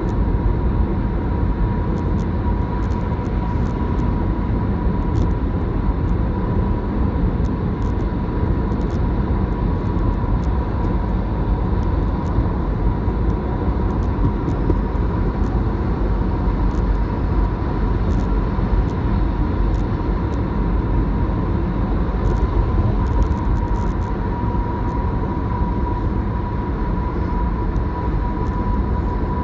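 Steady road and tyre noise of a car travelling at freeway speed, heard inside the cabin, with a steady high tone over it.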